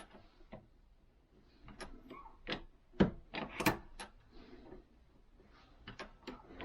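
Irregular clicks and clunks of a reloading press and die being worked to star-crimp a brass case into a blank. The two loudest knocks come about three seconds in, with another cluster of lighter clicks near the end.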